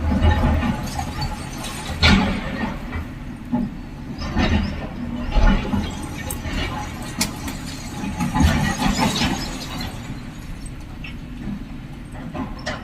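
Heavy diesel machinery working: a hydraulic excavator's engine running with a low rumble that swells in surges as it loads, with squealing and a few sharp knocks.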